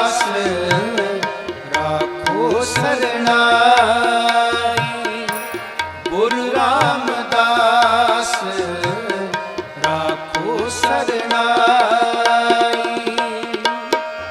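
Sikh devotional kirtan music: tabla keeping a steady rhythm under a wavering, ornamented melody line.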